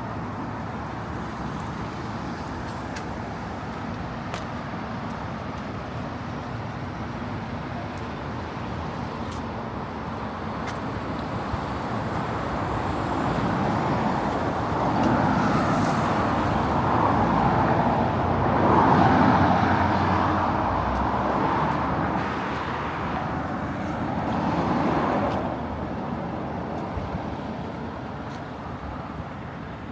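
Road traffic: a steady hum of passing cars that grows louder in the middle as several vehicles go by close, then fades back.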